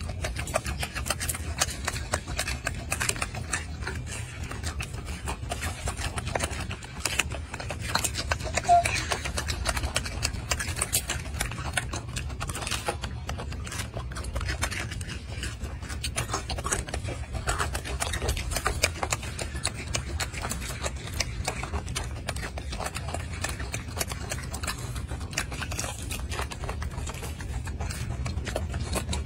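Golden snub-nosed monkey chewing a peeled mandarin orange: a fast, irregular run of smacking clicks over a low steady rumble.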